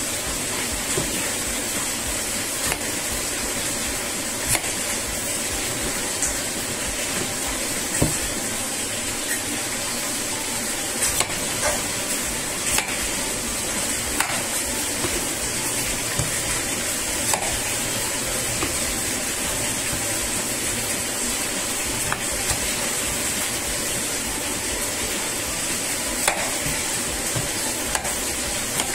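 Kitchen knife slicing through peeled raw potato and clicking on a wooden cutting board, sharp irregular knocks every second or two, over a steady hiss.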